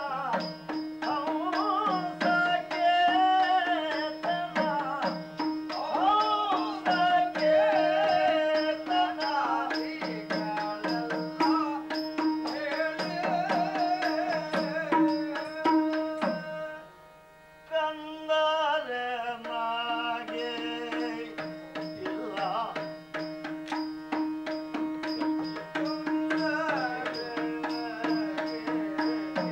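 Yakshagana music: a sung vocal line over a steady drone, with a maddale barrel drum and small hand cymbals keeping a quick beat. The music dips briefly about two-thirds of the way through, then picks up again.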